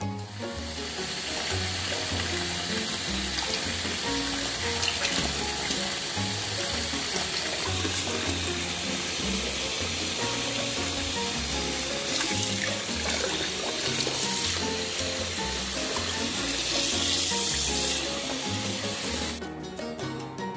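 A tap running into a sink as it fills with water, a steady splashing rush over background music. The flow stops shortly before the end.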